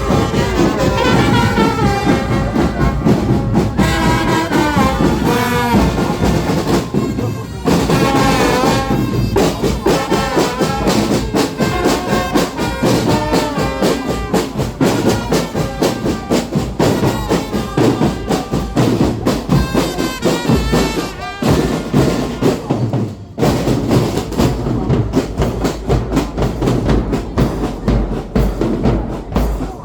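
Brass band music: horns playing a melody over drums, with a short break about two-thirds of the way in before the drumming carries on.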